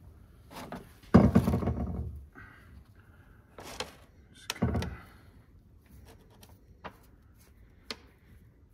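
Handling knocks on a wooden workbench while rope gasket is pressed into a steel stove door's channel: a loud thump about a second in that dies away over about a second, a second knock a few seconds later, then a few light clicks.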